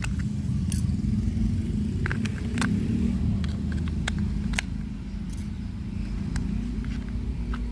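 A steady low rumble with scattered sharp clicks and ticks, a little louder for the first four and a half seconds and slightly quieter after.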